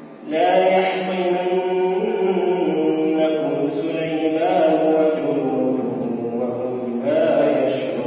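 A man reciting the Quran in melodic tajweed style, drawing out long held notes that rise and fall with ornamented turns. One phrase begins just after the start and a new one begins near the end.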